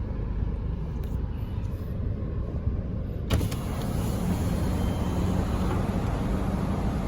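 Steady low rumble of road traffic. A click about three seconds in, after which the noise is brighter.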